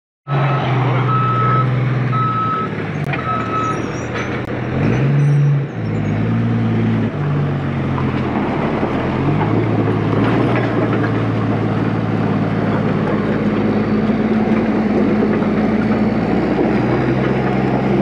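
Diesel engine of heavy earthmoving equipment running steadily, its revs swinging up and back down about five seconds in. A backup alarm beeps three times near the start.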